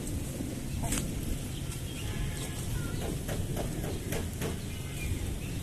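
Chickens clucking softly here and there while they forage, over a steady low background rumble.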